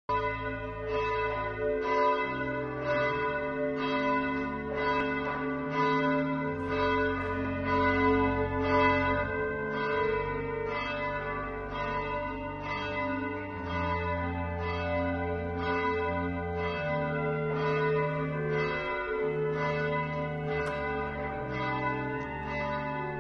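Church bells ringing, a fresh stroke a little under twice a second, with lower ringing tones that shift in pitch every few seconds.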